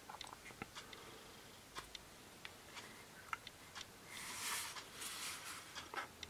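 Faint, scattered light clicks of fingertips tapping and handling a small Android tablet's touchscreen and plastic case, with a short soft brushing noise about four seconds in as the hands shift their grip.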